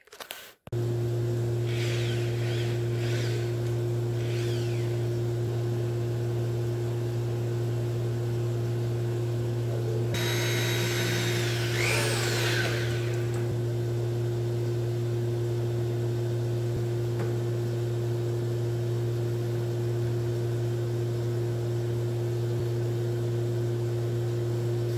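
A steady electric motor hum that starts abruptly just after the start and holds an even pitch, with a brief louder rushing sound about ten seconds in.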